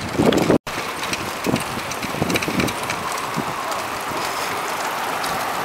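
Wind rushing over the microphone of a camera carried on a moving bicycle, a steady noise with light clicks and rattles. The sound cuts out completely for a moment about half a second in.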